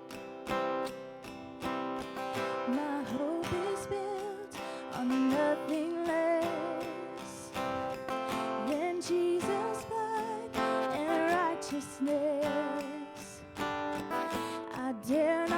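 Strummed acoustic guitar accompanying a singer, whose voice comes in with a wavering, vibrato melody a couple of seconds in: a worship song.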